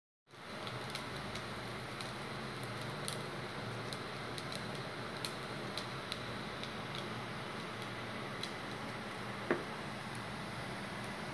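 Light scattered ticks of a spatula against the rice pot as fried rice is scooped out, with one sharper click about nine and a half seconds in, over a steady hiss.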